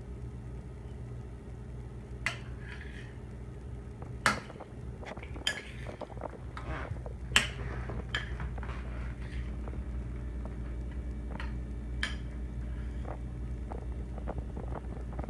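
A metal spoon clinking against a bowl as a toddler scoops mush: a handful of sharp, scattered clinks, the loudest about seven seconds in. A steady low hum runs underneath.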